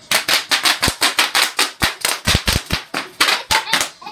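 Bubble wrap popping under running feet: a rapid string of sharp pops, about six a second, that stops just before the end.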